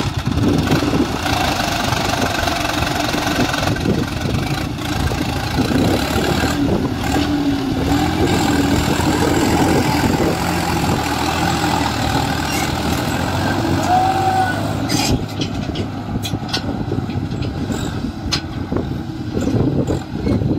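Tractor diesel engine running under load while the Swaraj 744 XT's rear wheels dig into soft sand, its pitch wavering up and down. In the last few seconds the sound changes and a few sharp knocks come through.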